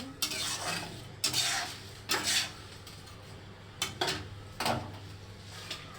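A spatula stirring and scraping around a kadhai of jaggery syrup as it cooks, in short irregular strokes about a second apart.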